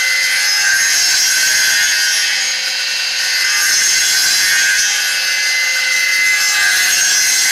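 Circular saw blade of a homemade copying machine running steadily and cutting through a pine board. It makes an even high whine over a hiss of sawing.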